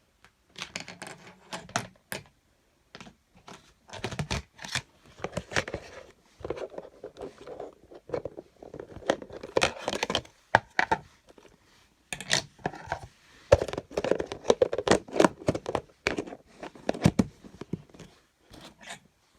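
Fidget toys being handled and sorted: irregular clicks, knocks and crinkling rustles of plastic.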